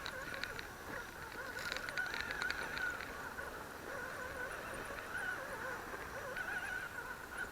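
Axial Wraith RC rock racer's electric motor and gear drivetrain whining as it crawls, the pitch wavering with the throttle, with a run of sharp clicks from the tyres and chassis working over rocks about two seconds in.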